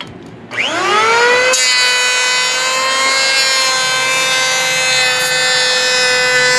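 Porter-Cable 6-amp electric hand planer switched on: its motor winds up with a rising whine about half a second in, then from about a second and a half runs at a steady high whine with the rushing noise of the cutter head shaving wood along the edge.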